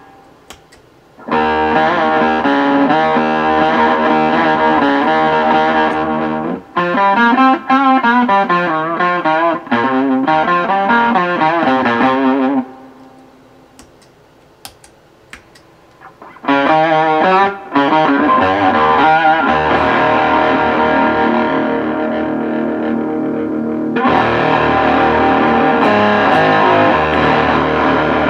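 Distorted electric guitar played through effects pedals and an amplifier. Chords ring out, then there is a passage of bent, wavering notes, a pause of a few seconds with a few small clicks, and then more chords. The tone changes about three quarters of the way through.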